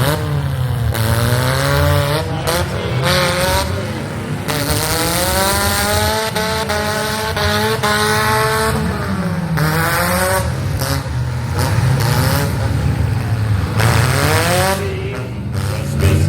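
Demolition derby cars' engines revving hard and dropping back again and again, several at once, their pitch rising and falling as they accelerate and back up. A few short bangs come through now and then.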